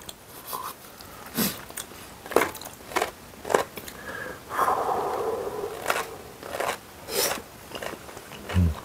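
Two people eating spicy cream chicken with spaghetti noodles close to a lapel microphone: chewing with short wet smacks and mouth clicks at irregular intervals, roughly once a second.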